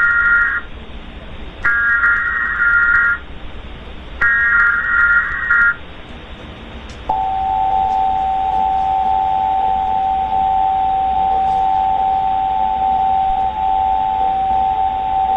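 Emergency Alert System tones over a steady hiss. First come three buzzing data bursts of the SAME header, each about a second and a half long with short gaps between them. About seven seconds in, the steady two-tone attention signal starts and holds.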